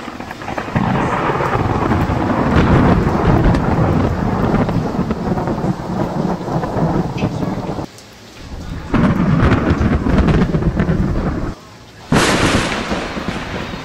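Heavy rain with thunder: a long, deep rumble for most of the first eight seconds, another about nine seconds in, then a sudden sharp thunderclap about twelve seconds in as lightning flashes, fading into the steady hiss of rain.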